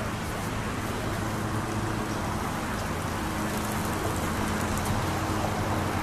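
Steady running-vehicle noise: a low, even hum under a broad hiss, with no distinct events.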